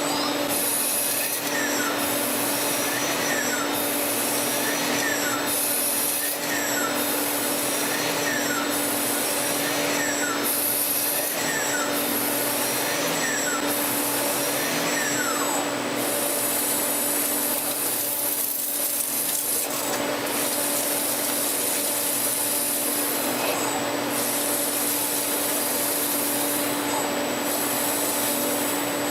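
CNC lathe machining metal: a steady machine hum under a cutting hiss. For about the first half the hiss pulses about once a second with short falling whines; after that it runs more steadily.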